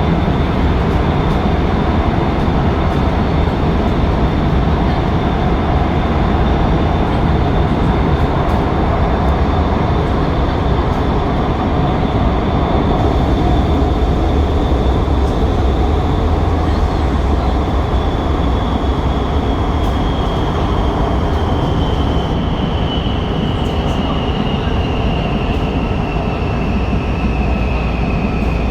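Fuzhou Metro Line 6 Type B metro train running, with a steady low rumble and a high whine. About two-thirds of the way through, the whine starts falling steadily in pitch as the train begins to slow.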